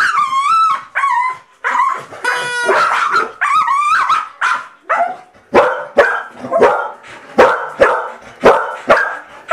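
Two excited Staffordshire bull terriers crying in high, wavering yelps and whines for the first few seconds. In the second half they bark steadily, about two to three sharp barks a second.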